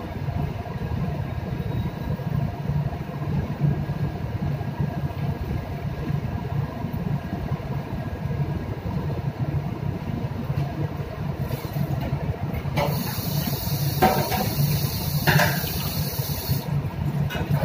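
Steady low drone of a ship's machinery, heard in the galley. Near the end comes a stretch of hiss with a couple of knocks.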